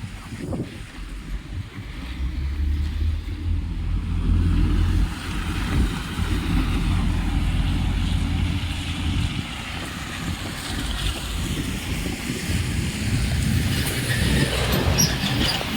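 Low engine rumble of a heavy vehicle running steadily, louder for a few seconds near the start, over a hiss of noise, with a few light ticks near the end.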